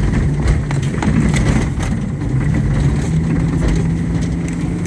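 Subaru Impreza's flat-four engine pulling on an off-road track, heard from inside the cabin, its note rising and holding higher about three seconds in. Frequent knocks and rattles from the car jolting over rough ground.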